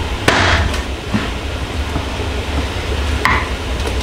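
Kitchen knife cutting squirrel meat on a wooden cutting board: a sharp chop with a short scrape about a third of a second in, then a lighter knock, over a steady low rumble.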